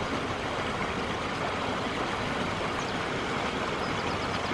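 Small shallow stream rushing steadily over stones and through grass.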